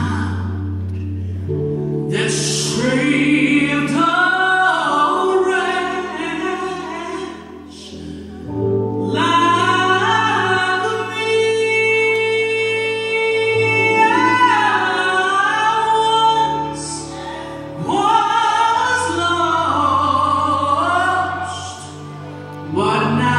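A woman singing a gospel song into a handheld microphone, with wavering held notes, over sustained low accompaniment chords that change every few seconds. A long held note comes about halfway through.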